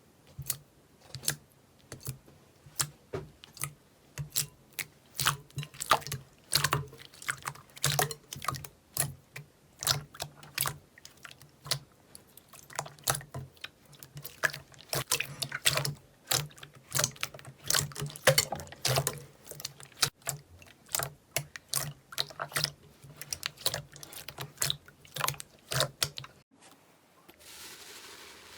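Slime being squeezed and poked by hand, giving an irregular run of wet clicks and pops, several a second. The clicking stops near the end, leaving a soft hiss.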